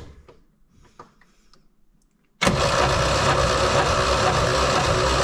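Saab V4 engine cranked on its starter motor for a compression test on cylinder 1, which is suspected of worn piston rings or cylinder wall. The starter comes in suddenly about two and a half seconds in and cranks steadily, with a regular low pulse as the pistons come up on compression.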